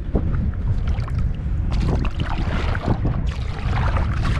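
Water splashing and lapping around a kayak being paddled, with swells of splashing hiss about two seconds in and again near the end. A steady low rumble of wind runs on the microphone.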